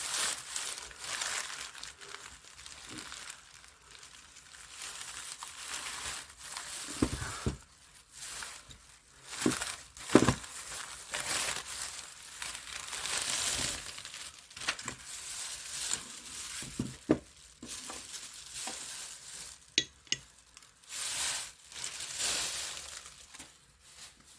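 Rustling and crinkling of wrapping or packing material being handled, in irregular bursts, with a few knocks from objects being set down, the strongest about ten seconds in.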